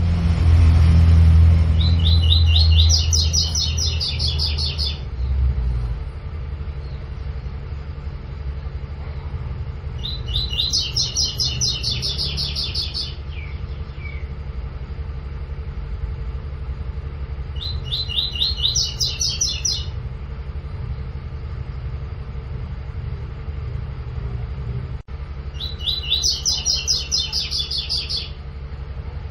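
Double-collared seedeater (coleiro) singing its 'tui-tui' song: four phrases, each a rapid run of short repeated notes lasting about three seconds, about seven seconds apart. A steady low rumble runs underneath, louder in the first few seconds.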